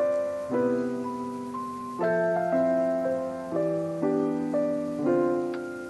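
Background music: a gentle piano-like keyboard tune with new notes and chords about every half second to second, each fading away.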